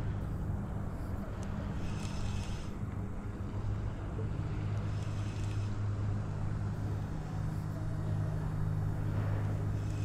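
Boat motor running with a steady low hum.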